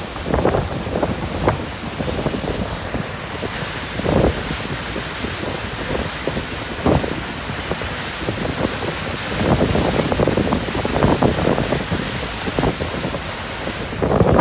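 Wind buffeting the microphone in uneven gusts over the wash of sea water, recorded from a moving boat. A steady hiss joins about three seconds in and drops away near the end.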